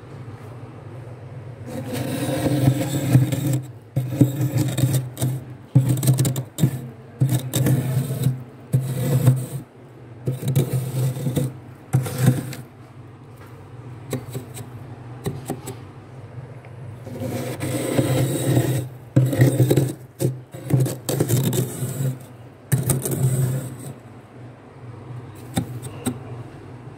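Rim of a glass cup scraping through thick, soft freezer frost in quick repeated strokes, in two long runs with a quieter pause between them, over a steady low hum.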